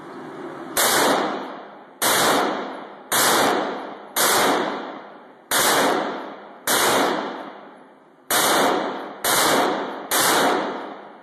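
Nine rifle shots from a Stag Model 8 AR-15-style rifle, spaced about a second apart with slightly longer gaps after the fourth and sixth shots. Each crack is followed by a decaying echo of around a second.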